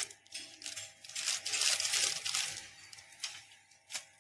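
Plastic cracker packets crinkling as they are handled and moved, with two light taps near the end.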